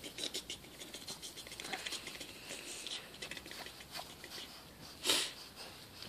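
Close, soft rustling and scratchy breathy noises near the phone's microphone, with one short, louder puff of breath about five seconds in.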